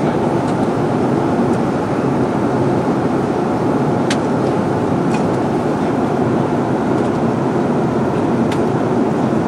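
Steady cabin roar of an Airbus A330 airliner in descent: engine and airflow noise heard from a passenger seat. Two faint clicks come through it, about four seconds in and near the end.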